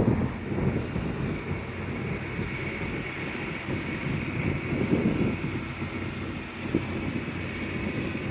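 Wind buffeting the microphone: a gusty low rumble that swells and eases, with a faint steady high whine in the background.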